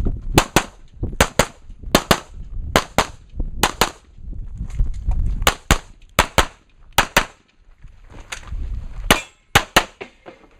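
Handgun shots fired in quick pairs, about two shots on each target, in a rapid string of roughly eight pairs with short gaps between them.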